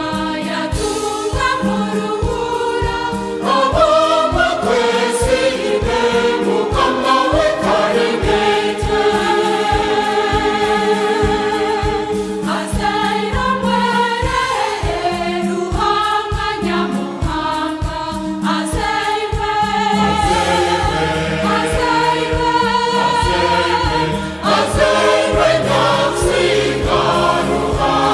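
Choir singing a Christmas hymn in Runyankole-Rukiga, with vibrato on the held notes, over a steady low beat; about two-thirds of the way through a sustained low bass note comes in beneath.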